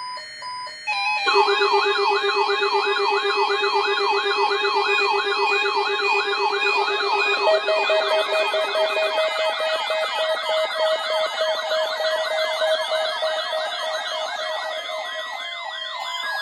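Electronic emergency-alert alarm for a weather-radio warning test. A few short beeps, then from about a second in several layered siren-like tones warble up and down a few times a second over steady held tones.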